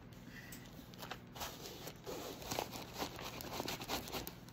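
Faint rustling with scattered light ticks as cross-stitch fabric and project bags are handled and moved.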